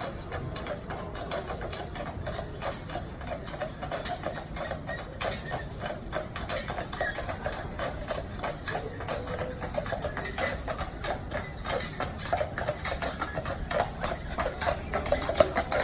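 A horse's hooves clip-clopping in a steady rhythm, getting louder toward the end.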